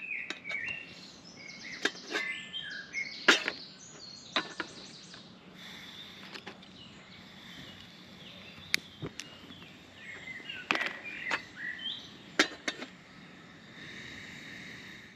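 Sharp clicks and metallic clinks as a camping kettle and a gas canister stove are handled, with birds chirping. Near the end a steady hiss sets in as the stove's burner is lit.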